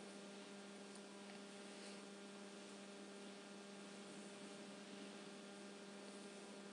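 Near silence: a faint, steady electrical hum with a low hiss.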